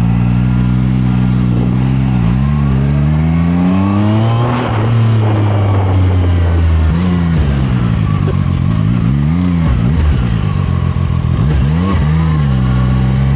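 Zontes 703RR sport motorcycle's inline three-cylinder engine revving repeatedly, its pitch rising and falling in blips, with one longer climb about three seconds in that drops off sharply near the middle.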